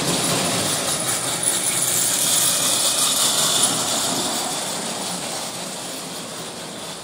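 Carlisle & Finch No. 45 electric tinplate locomotive and its freight cars running on 2-inch gauge track: a steady rumble and rattle of the DC motor and brass wheels on the tin rails. It is loudest as the cars pass close, a few seconds in, then fades as the train moves away.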